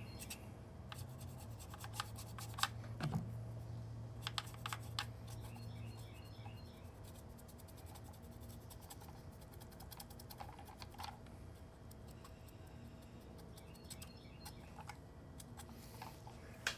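Faint scattered clicks and light taps from a plastic Nerf toy blaster being handled and brushed with acrylic paint, over a low hum that fades about six seconds in.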